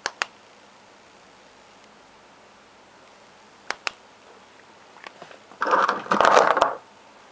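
A DEVE elevator call push button clicking in and springing back, twice, each press a quick double click. Near the end, a louder burst of scraping and rattling as the metal button is handled.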